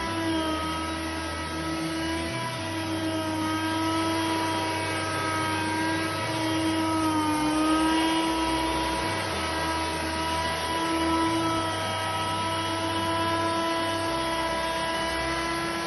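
Kärcher PCL 4 electric patio cleaner running, its rotating brush rollers scrubbing a wet wooden deck: a steady motor whine that dips briefly in pitch about halfway through.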